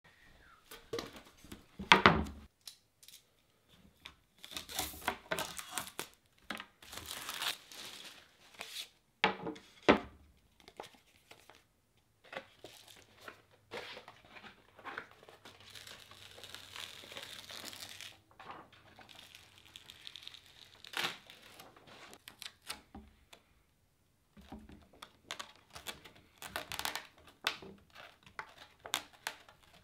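A sheet of Mob Grip skateboard grip tape being unrolled and handled, its paper backing crinkling and tearing as it is peeled away. There are a few sharp knocks, the loudest about two seconds in and again about ten seconds in, as the blank wooden deck is handled on the table.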